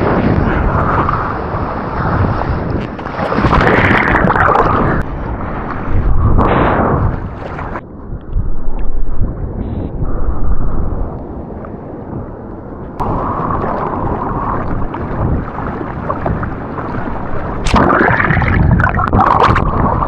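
Surf and rushing water with wind buffeting an action camera's microphone, surging louder several times. For several seconds in the middle the sound turns muffled and dull.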